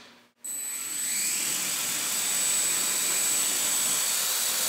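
Blade mQX micro quadcopter's four small brushed motors and propellers running, a steady whir with a thin high whine, starting abruptly about half a second in. One of its flexible 3D-printed arms is vibrating badly, which the owner blames for the craft being hard to control.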